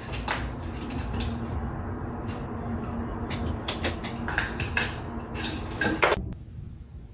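A run of sharp clinks and knocks of hard objects over a low steady rumble, coming thickest in the second half, then cut off abruptly about six seconds in.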